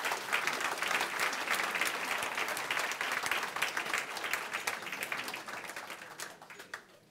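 A large audience applauding, many hands clapping together, dying away over the last couple of seconds.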